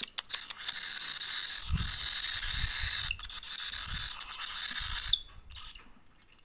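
Young hand-fed cockatiel giving its raspy, hissing begging call without a break while it takes food from a syringe, stopping about five seconds in. Soft low thumps sound underneath.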